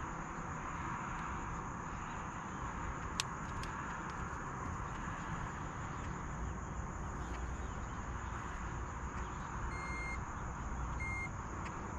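A digital fish scale beeping twice near the end, two short high beeps, over a steady outdoor background hiss. A single sharp click about three seconds in.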